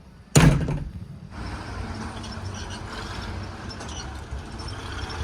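JCB 3DX backhoe loader at work: a sudden loud clank about half a second in that dies away within a second, then the machine's diesel engine running steadily with scattered rattles.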